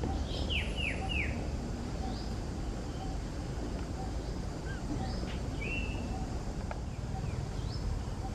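Outdoor ambience of short high chirping animal calls: three falling chirps in quick succession about half a second in, then scattered single calls, over a steady low rumble.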